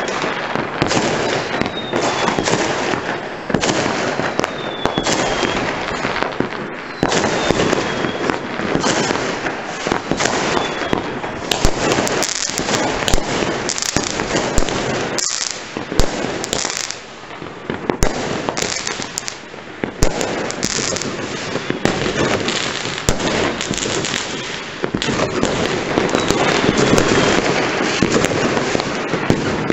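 Fireworks and firecrackers going off all around in a continuous barrage of bangs and crackling. Short whistles falling in pitch come through every few seconds.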